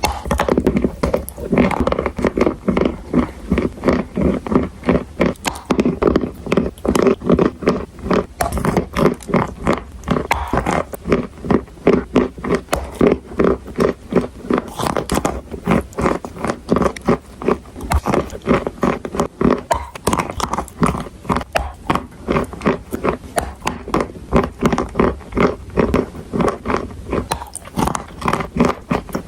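Edible chalk and clay being bitten and chewed close to the microphone: a steady run of crunches, a few a second.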